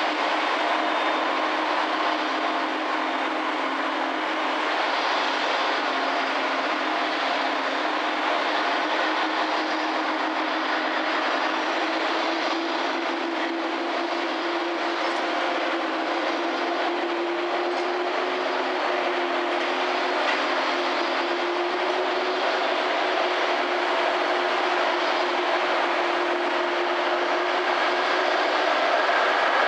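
Jet airliner on the apron: a steady roar with a low hum that rises slightly in pitch from about the middle, and a higher whine joining near the end.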